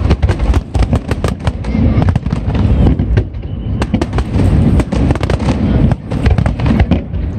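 Aerial fireworks display: a rapid, continuous barrage of shell bursts, several reports a second over a deep rolling boom.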